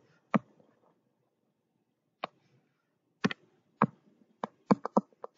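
About eight sharp clicks from a computer input device while writing and erasing on a digital whiteboard. One comes early, then a gap, then the clicks come faster, several per second near the end.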